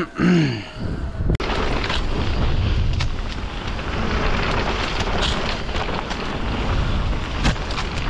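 Canyon Spectral:ON electric mountain bike descending a dirt forest singletrack. Steady wind rush on the camera's microphone mixes with tyres rolling over dirt, and a few sharp knocks from the bike over bumps. It opens with a short tone that rises and falls, and the sound cuts out abruptly for an instant about a second in.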